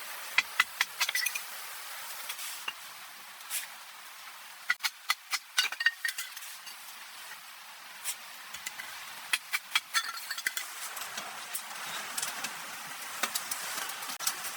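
Metal cookware clinking and clattering in quick clusters of sharp strikes, some with a brief ring, over a steady hiss.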